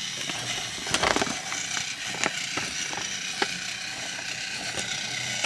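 Electric Thomas toy engine running around a wooden train track, a steady motor whir with scattered clicks and clacks as its boxcars roll over the track joints, a small cluster of them about a second in.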